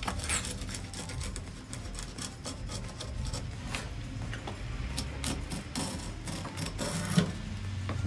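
Kitchen knife cutting and scraping along a conger eel on a wooden cutting board: a run of short rasping strokes and small clicks, with a sharper tap about seven seconds in.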